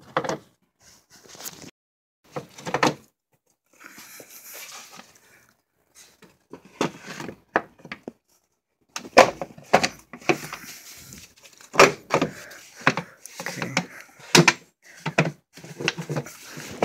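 The air filter being set back into the 2012 Honda CR-V's plastic air filter housing and the lid pushed down and clipped shut: a run of hard plastic knocks, clatters and clicks, with a scraping rustle about four seconds in.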